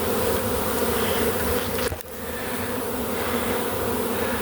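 A swarm of honey bees buzzing in a steady, dense hum, with a brief dip in level about two seconds in.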